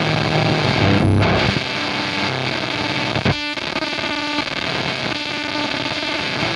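Electric guitar from a Fender Jaguar's bridge humbucker, played through a Chaos fuzz pedal (a Soda Meiser-style vintage fuzz) at maximum gain. It has a gnarly, sputtering distorted tone. Low chords give way to higher notes after about a second and a half, and a short crackling noise burst comes about halfway through.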